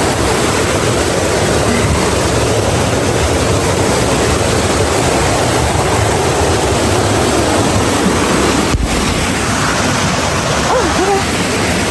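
River water rushing over rocks, a loud, steady wash of noise.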